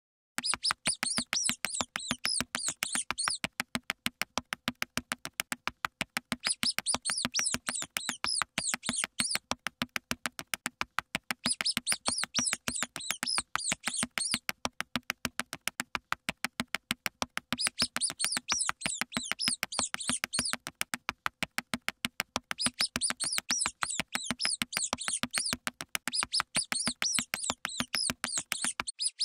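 High-pitched mouse squeaks, added as a sound effect, come in chirping bursts of about three seconds, roughly every five seconds. Under them runs a fast, steady clicking.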